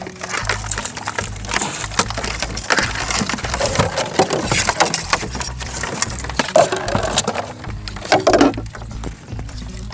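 Clattering, scraping and repeated knocks as a wire-framed mesh crab trap and a plastic basket are handled in a small boat, with the loudest knocks about six and a half seconds in and again around eight seconds in.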